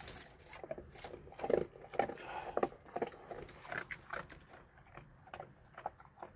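Dog crunching dry cat kibble: a run of short, irregular crunches and clicks, busiest in the first half.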